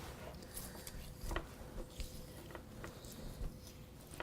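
A breaking knife cutting along the rib bones to separate the spare ribs from a pork belly: faint, scattered small scrapes and ticks of the blade.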